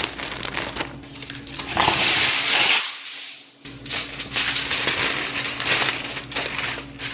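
Plastic produce bag rustling and crinkling as romaine hearts are handled, then, after a brief break, aluminium foil crinkling as it is folded and pressed around a head of romaine lettuce.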